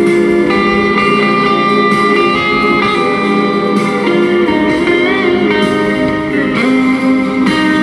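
Electric guitar played through a small amplifier: a slow melody of long sustained notes over held chords, with some notes bent and shaken in vibrato.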